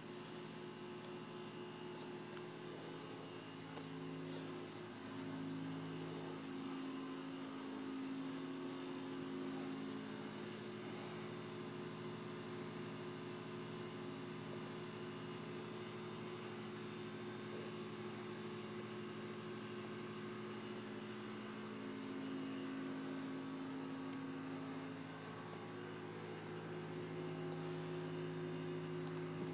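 A steady low hum made of several tones, some of which fade in and out every few seconds.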